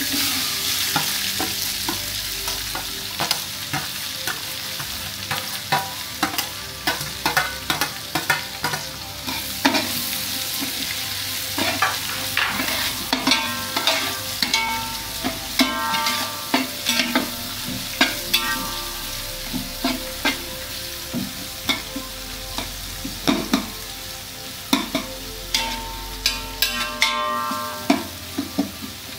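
Chopped onions sizzling in hot oil in a large aluminium pot, loudest just after they go in near the start. A metal ladle stirs and scrapes them, clanking against the pot with many short metallic rings.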